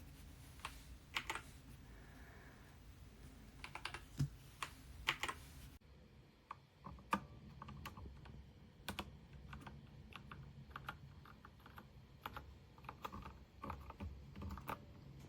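Typing on a KEMOVE K98SE mechanical keyboard with red linear switches. Key presses come a few at a time for the first six seconds or so, then as quicker, denser typing.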